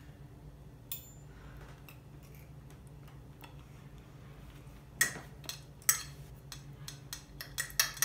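Knife and fork clinking and scraping on a plate as a cooked patty is cut. Quiet at first with a single click about a second in, then a quick run of sharp clinks from about five seconds on.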